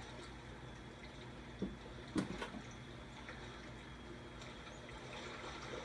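Kitten's paws knocking against a TV screen: a few soft thumps between about one and a half and two and a half seconds in. Underneath, a faint steady trickle of water from the fish video playing on the TV.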